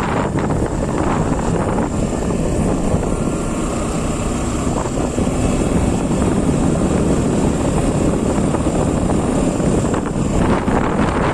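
Motorcycle on the move: steady engine and road noise with wind rushing over the microphone.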